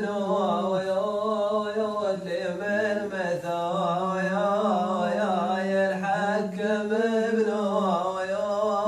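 A man singing an Omani shaila in a chanted, drawn-out melody. The notes are long and held, and the pitch bends and wavers through them.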